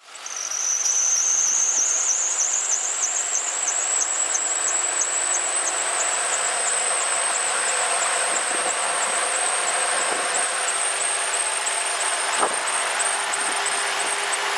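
Serpentine drive belt squealing on the pulleys of a running Ford Crown Victoria engine: a high-pitched, steady squeal that slowly rises in pitch and pulses about three times a second, over the engine's running hum. The belt is slipping, which is the annoying squeal that belt dressing is meant to stop.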